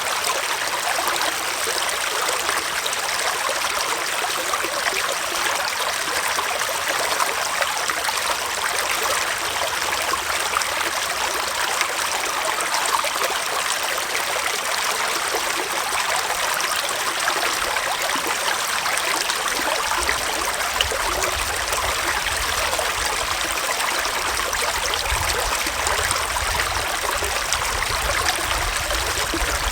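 Small forest stream flowing steadily, an even rushing and trickling of water. A faint low rumble joins about two-thirds of the way in.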